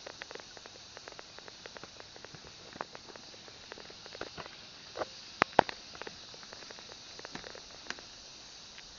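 Bicycle rolling over a rough dirt-and-gravel track: irregular clicks and rattles from the bumps, with two sharper knocks about five and a half seconds in.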